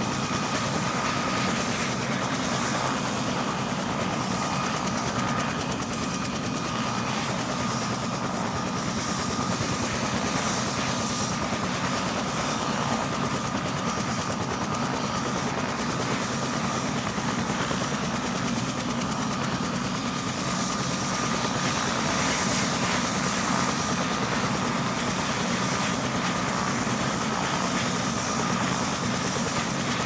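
Steady engine rumble with a faint, steady high whine running over it; no siren is sounding.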